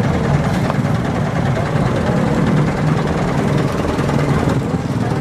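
Vehicle engines running at a steady low rumble.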